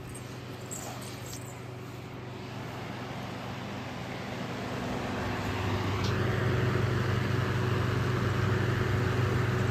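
Air purifier fan running with a steady hum and a rush of air. From about four seconds in it speeds up, the airflow growing louder and higher, then holds at the faster speed.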